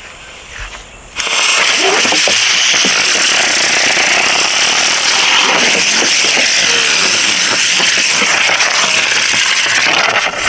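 A lit firework burning with a loud, steady hiss. It starts suddenly about a second in and keeps going without a break.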